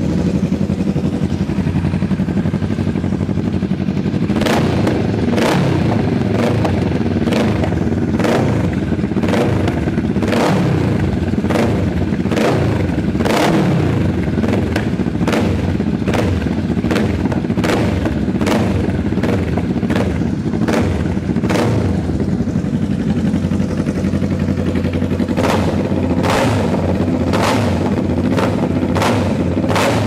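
Honda Rebel 500 and Kawasaki Vulcan 650 parallel-twin engines running together through custom handmade exhausts, revved by hand. From about four seconds in comes a string of sharp exhaust pops and bangs, roughly one or two a second.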